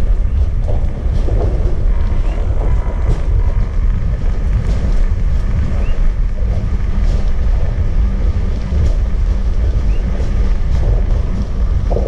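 Steady low rumble of an erupting Kilauea lava fissure, with scattered sharp crackles over it.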